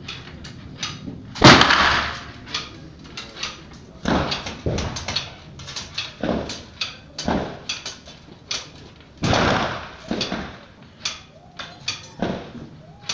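Rifle shots on a covered firing line, each sharp crack echoing briefly. The loudest come about a second and a half in and about nine seconds in, with smaller shots and knocks between.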